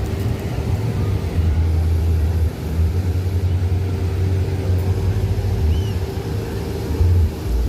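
Steady engine drone of a small propeller airplane, with a heavy, unsteady low rumble under it.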